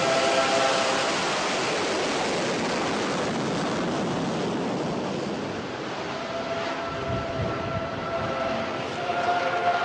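Jet engine roar of a carrier fighter on its takeoff run, loudest in the first second. About six seconds in, steady sustained tones come in over the roar.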